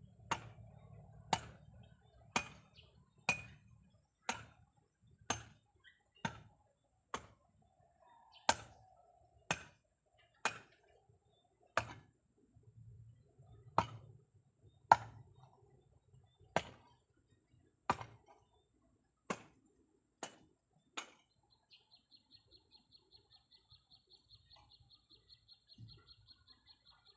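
Hand-tool chopping: about twenty sharp strikes, roughly one a second. After that, a fast, high, even trill takes over near the end.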